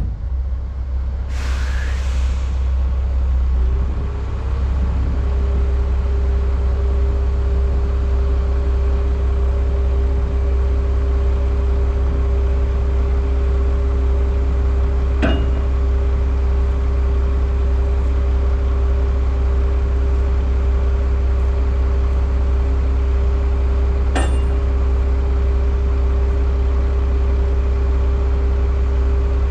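Heavy truck's diesel engine idling steadily, heard from inside the cab. A short hiss comes about two seconds in, a steady whine joins about four seconds in and holds, and there are two sharp clicks later on.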